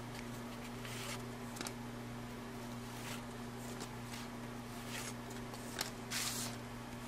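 Soft brief swishes of cardboard 1981 Topps football cards sliding against each other as a stack is thumbed through one card at a time, the longest swish about six seconds in. A steady low hum sits underneath.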